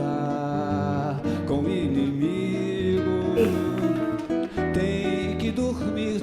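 Background music with strummed acoustic guitar and a sung melody.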